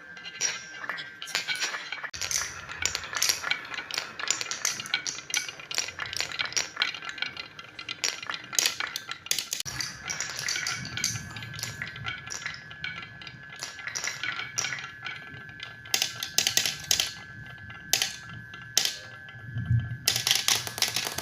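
Marbles rolling and clattering down a wooden HABA marble run: a continuous stream of quick clicks and rattles, rising into louder bursts of clatter every few seconds.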